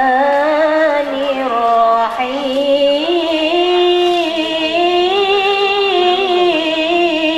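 A woman chanting Quran recitation through a handheld microphone, in long drawn-out notes with melodic ornaments. The melody steps up to a higher pitch about three seconds in.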